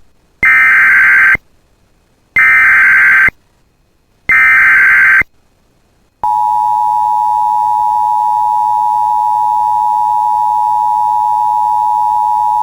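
Emergency Alert System header and attention signal: three bursts of about a second each of SAME digital header data, a buzzing data tone that encodes the alert, with short silences between, then about six seconds in the steady two-tone EAS attention signal starts. It signals that a warning message is about to be read.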